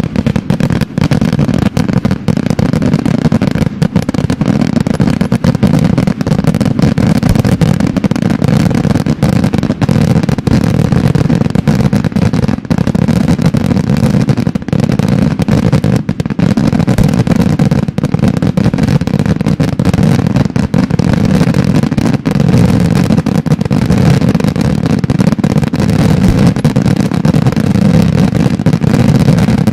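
Daytime fireworks barrage: shells and salutes bursting in rapid succession, so dense that the bangs run together into one continuous loud roll with no pause.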